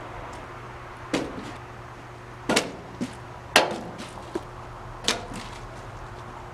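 Plastic water bottle thrown at a wooden deck rail, knocking sharply about six times, a second or so apart, over a low steady hum.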